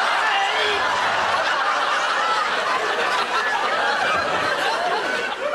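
Studio audience laughing, a steady wave of many voices that eases off a little near the end.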